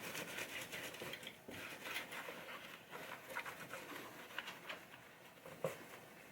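Faint, irregular small clicks and light rubbing of hands handling things, with one slightly louder knock near the end.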